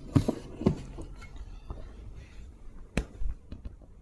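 Handling noise from a loudspeaker being handled: a few short knocks and clicks in the first second, then one louder knock about three seconds in.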